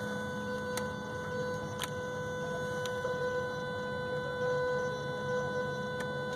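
Yamaha F250 V6 outboard's electric high-pressure fuel pump running with the key switched on, a steady even whine, pressurizing the fuel rail to flush water-contaminated fuel out through a sampling line. A few faint ticks come through over it.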